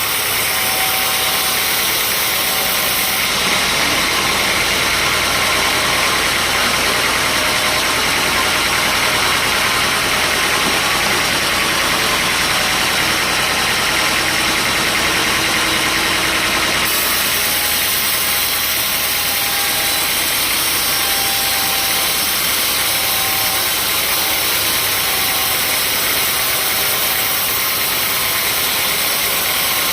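Sawmill machinery running steadily: a continuous loud mechanical drone with a dense hiss over it.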